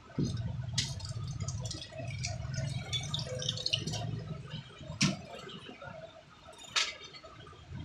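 Kitchen work at a steel food-stall counter: a low steady hum that eases off about halfway, with scattered light clinks and three sharp knocks, the loudest about five seconds in.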